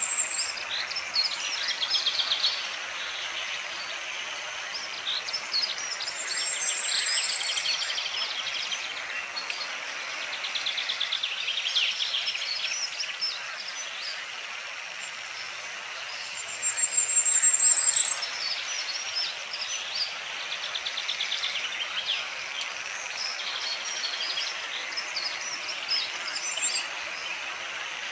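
Outdoor animal chorus of overlapping chirps and rapid pulsed trills, with a thin, high rising whistle a few times and a louder burst of calling about two-thirds of the way through.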